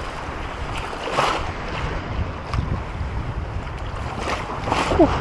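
Water splashing and sloshing around the legs of someone wading through shallow water, with a few louder splashes from strides, the loudest just before the end. Wind rumbles on the microphone throughout.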